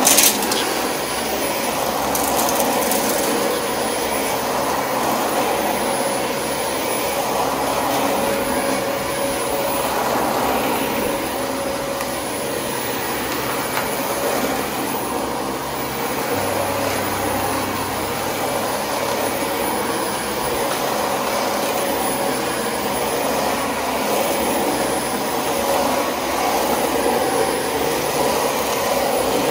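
Vacuum cleaner running steadily. There is a sharp knock right at the start and a few brief rattles about two to three seconds in.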